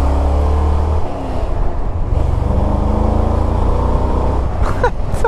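1982 Jeep CJ7's 5.7-litre V8 engine running under way; the sound drops off briefly about a second in, then climbs in pitch as the engine pulls.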